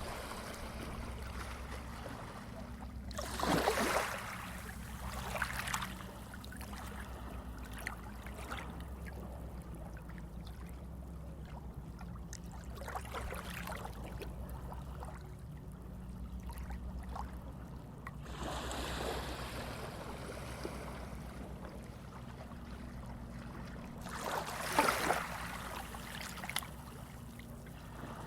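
Sea waves washing in over a steady low rumble, with splashes of water surging every few seconds. The loudest splashes come about four seconds in and near the end.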